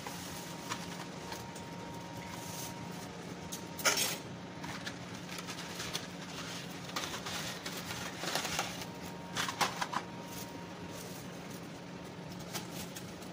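Water boiling in a stainless steel pot, bubbling steadily, with a few short sharp clicks and knocks as dry fettuccine is dropped in and taps against the pot.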